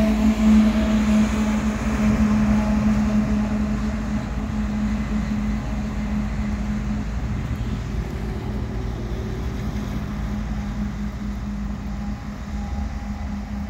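Diesel engine of a BNSF GE ES44AC locomotive running as the rear distributed-power unit of a loaded coal train, a steady drone over a low rumble that slowly fades as it pulls away.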